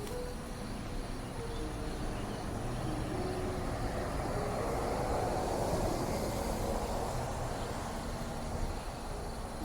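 A vehicle passing by, its noise swelling to its loudest about halfway through and then fading, with a few soft low held notes in the background.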